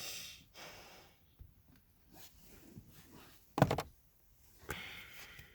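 A single sharp thump or knock about three and a half seconds in, amid a few soft rustling noises.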